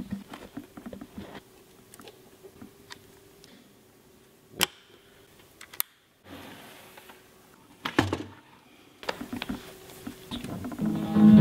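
Handling noise from audio cables and gear being set up: scattered clicks and knocks, with a sharp click about four and a half seconds in and a thump about eight seconds in, over a faint steady hum. Near the end, loud sustained amplified notes start ringing.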